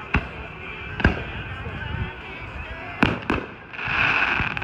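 Fireworks going off: four sharp bangs spread over the first few seconds, then a hissing, crackling burst lasting about a second near the end.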